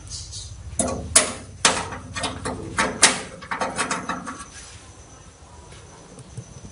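A handful of sharp clicks and knocks as hands work at the back of a metal desktop computer case among its plugged-in cables, dying down to quiet handling after about four and a half seconds.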